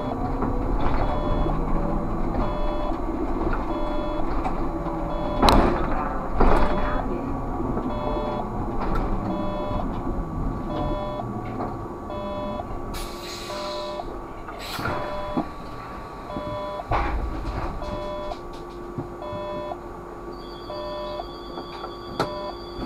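Cab sound of a Škoda 30Tr SOR trolleybus slowing and standing at a stop, with the electric drive's whine early on. A regular cab beep repeats a little more than once a second. Two loud knocks come about five and six seconds in, a short hiss about thirteen seconds in, and a steady tone starts near the end.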